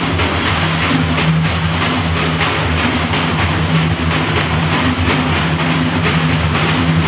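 Live frame-drum ensemble: several large hand-held frame drums beaten by hand in a steady driving rhythm, with a small tambourine jingling along.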